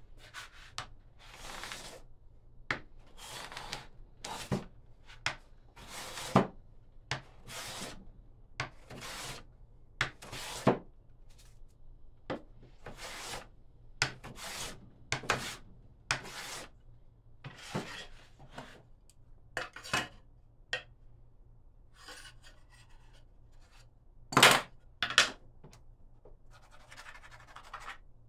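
A hand tool worked against wood in separate scraping strokes, about one a second and uneven, with a few sharp knocks among them and a loud pair near the end.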